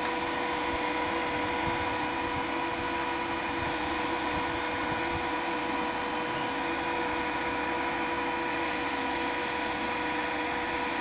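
Welding inverter idling with no load, running after its power transistors were replaced with FGH60N60UFD parts: a steady fan-like whir with a steady hum.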